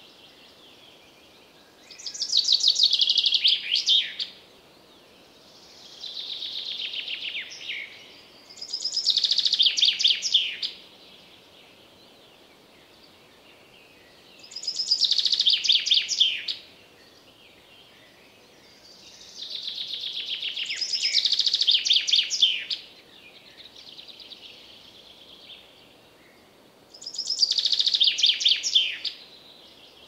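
Common chaffinch singing: a rapid trilled song phrase about two seconds long, given five times several seconds apart, with fainter bird song between the loud phrases.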